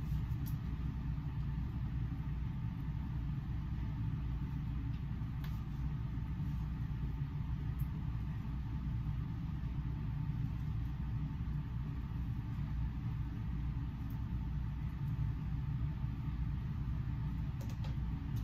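Handheld hair dryer blowing steadily, a constant rush of air that is heaviest in the low end.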